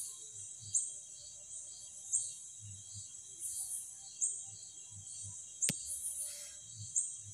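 Chorus of night insects: a steady high trill with a chirp pulsing about three times a second, and a louder high buzzing call repeating roughly every second and a half. A single sharp click about six seconds in.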